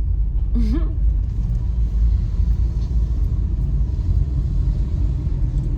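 Car on the move, a steady low rumble of engine and road noise heard from inside the cabin.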